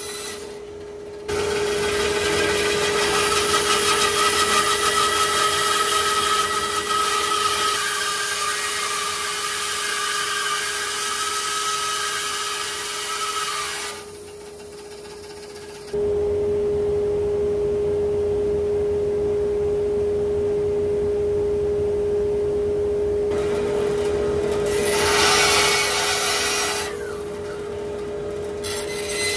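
Wood lathe running with a steady hum while a turning tool cuts into a live oak bowl, making a hissing, scraping noise of shavings for a long stretch. Then the lathe hums on with little cutting, and a short burst of cutting comes near the end. The sound drops away abruptly twice.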